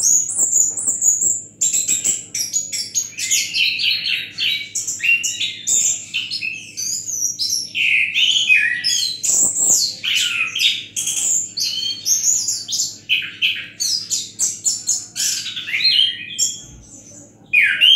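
Orange-headed thrush singing a continuous, varied song of quick whistled notes that sweep up and down, with a short lull near the end.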